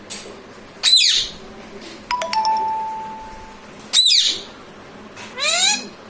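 Pet ringneck parrot screeching twice, short and shrill, about a second in and again about four seconds in. Between the screeches a bell-like ding rings and fades over about a second and a half. Near the end comes a short rising whistle-like call.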